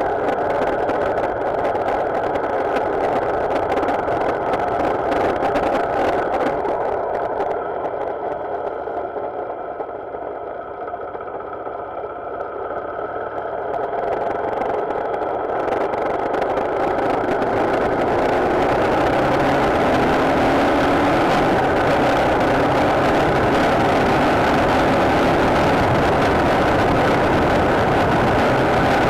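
Motorcycle riding along, its engine and road noise easing off and quietening about a third of the way in. The engine note then rises as it speeds up again and holds steady at speed.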